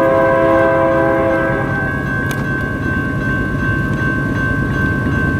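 Freight locomotive's multi-tone air horn holding a chord that cuts off about a second and a half in. It leaves the steady rumble of the passing freight train, with two high steady tones carrying on over it.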